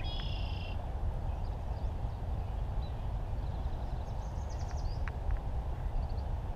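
Steady low rumble on the microphone. A bird gives a short trilled call right at the start and another, higher trill about four seconds in, with a few faint clicks in between.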